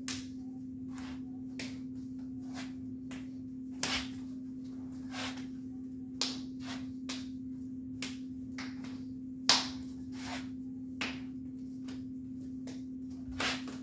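Hands and forearms slapping against each other in quick, uneven strokes, about two a second with a few louder smacks: the parries, checks and feeds of a hubud partner flow drill. A steady low hum runs underneath.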